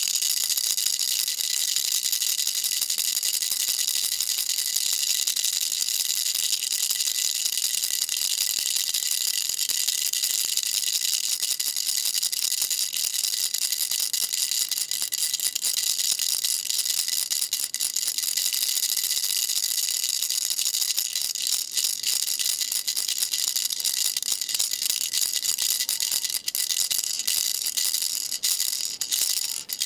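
A baby rattle shaken without pause, its contents rattling densely and brightly. In the later part the shaking turns choppier, with short breaks between shakes.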